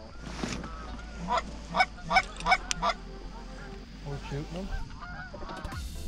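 Flock of Canada geese honking, many overlapping calls, with a run of about five louder honks between one and three seconds in.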